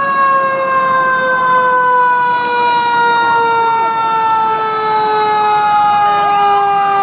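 Fire engine siren sounding one long wail that slowly falls in pitch.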